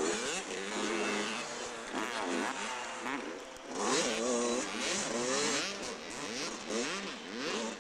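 80cc two-stroke motocross bike engine revving hard, its pitch climbing and dropping back again and again as it runs through the gears over the track's bumps and jumps.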